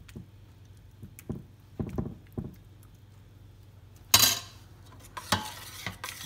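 A metal ladle scraping and dabbing minced-meat sauce across a ceramic baking dish in a few soft strokes, then a loud ringing clatter of kitchen utensils about four seconds in, followed by lighter clinks.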